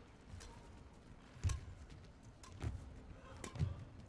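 Badminton rally: rackets striking the shuttlecock, a sharp hit roughly every second, over a low hall background.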